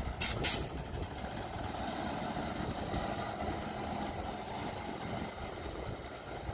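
Freightliner M2 rear-loader garbage truck's diesel engine running steadily as the truck pulls away, with two short hisses of air right at the start.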